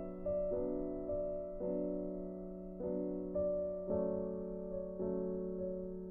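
Soft background piano music: a slow melody of single struck notes, each fading away, over a held low note.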